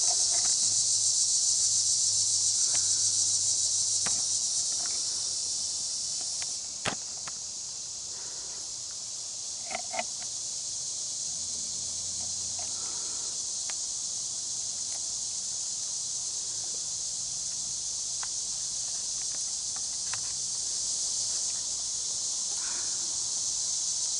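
Steady high-pitched insect chorus, which drops in level about six seconds in, with a few sharp clicks and snaps scattered through it.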